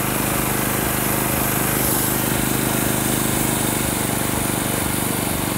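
Small gasoline engine running steadily at speed, driving an axe that spins on a horizontal shaft.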